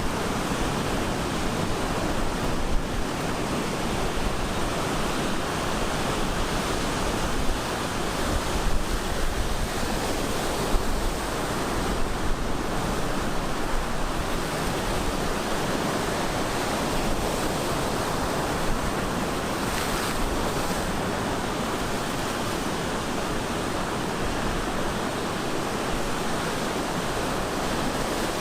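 Ocean waves breaking and washing up on a beach, a steady surf noise with some wind on the microphone.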